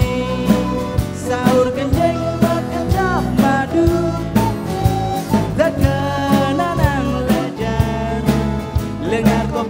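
Fusion band music: a regular drum beat under steady bass notes, with a melody line that bends and slides in pitch.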